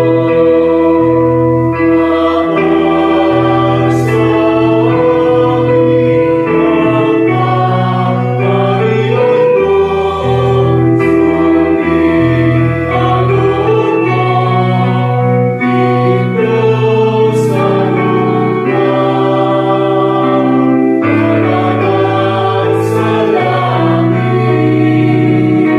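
Church choir singing a hymn in parts, holding long chords, over electronic keyboard accompaniment. A high cymbal-like splash comes about every six seconds.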